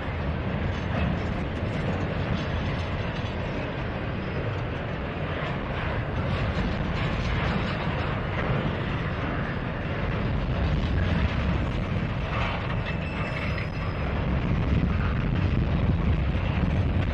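Double-stack intermodal well cars rolling slowly past: a steady rumble of steel wheels on rail, with occasional clanks and knocks from the cars.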